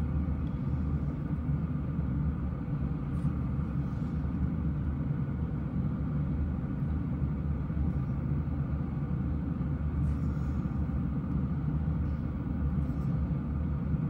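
Nail dust collector fan running beneath the hands: a steady low hum and rushing air, with a few faint light ticks.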